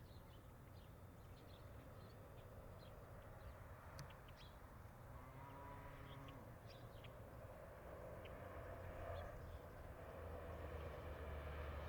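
Faint rural farm ambience: scattered bird chirps over a low rumble of distant traffic, which grows louder near the end.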